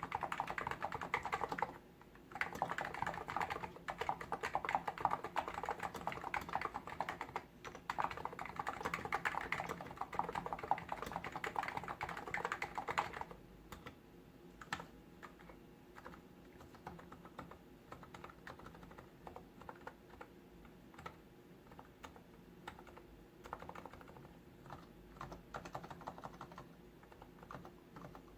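Hansung GTune CHL8 tenkeyless capacitive (non-contact) keyboard being typed on. Fast, continuous typing for about the first half, then slower, sparser keystrokes.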